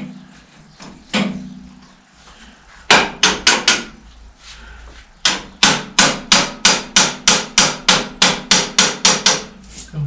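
Hammer blows on a steel punch, driving a pin out of a tractor's clutch pedal assembly: two single blows, a quick group of four about three seconds in, then a steady run of blows at about four a second from about five seconds in.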